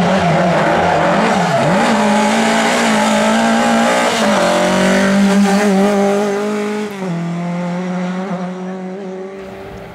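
Rally car engine running hard on a stage, its note wavering, then jumping up about four seconds in and dropping at a gear change about seven seconds in, before fading as the car moves away.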